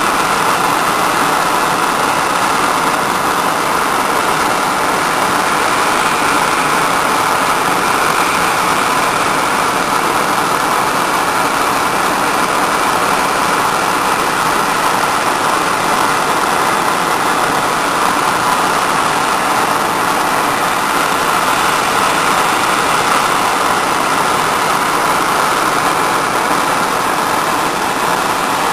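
Hose-fed gas torch burning with a steady rushing noise, its blue flame heating a ring terminal on a 4-gauge battery cable to melt solder into it.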